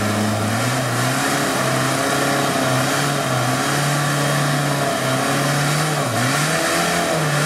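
Engine of a 4x4 off-road trial special revving hard under load as it climbs a boulder. The revs are held high, drop and pick up again several times, with a short dip about six seconds in.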